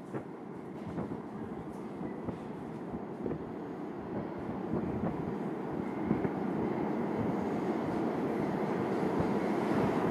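New York City subway train approaching through the tunnel into the station, its wheel and track rumble growing steadily louder.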